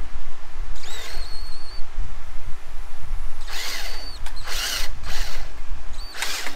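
Cordless DeWalt drill/driver running screws into a steel mounting plate, in several short trigger bursts, its motor whine rising each time it spins up. A steady low rumble underlies it.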